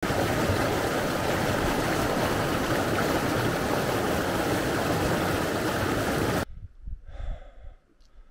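Loud, steady rush of running water, cut off suddenly about six and a half seconds in, followed by a brief faint vocal sound.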